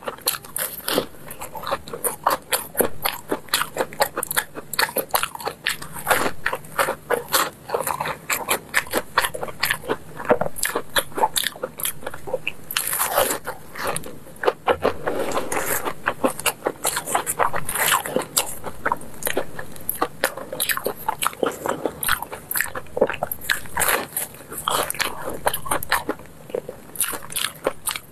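Crunching and chewing of crisp, sesame-coated pumpkin cakes: a quick, irregular run of crackles as the crust is bitten and chewed.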